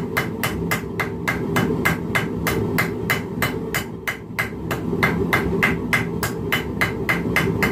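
Hand hammer striking red-hot steel on a small anvil, forging it into a leaf shape: a steady run of sharp metallic blows at about three a second, over a steady low rumble.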